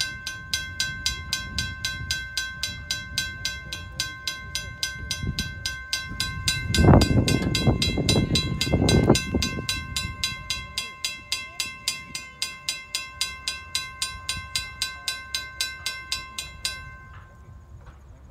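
Railroad grade-crossing warning bell ringing at about three strikes a second, then stopping near the end. A louder low rumble rises and falls for a few seconds in the middle.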